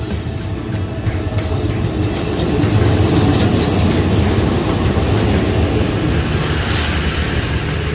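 Diesel-hauled passenger train passing close along a station platform: a steady low rumble of engine and wheels on rails that grows louder about two and a half seconds in as the locomotive goes by, then carries on as the coaches roll past.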